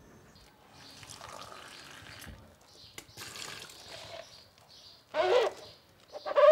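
Dish washing at a kitchen sink: a soapy sponge scrubbing a ceramic mug with water trickling. Near the end come two short, loud squeaks, the louder of the two about a second and a half before the first ends... the second right at the end.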